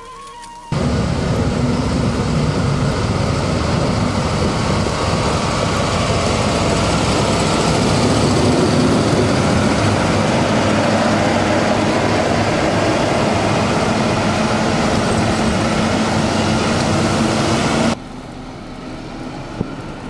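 Heavy snow-clearing machine's engine running close by: a loud, steady rumble with a hiss over it, starting suddenly about a second in and cutting off abruptly near the end.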